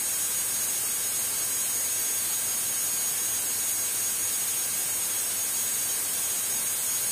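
Steady, even hiss of cabin noise in a Diamond DA42-VI twin-diesel aircraft climbing at full power, with no distinct engine or propeller tone standing out.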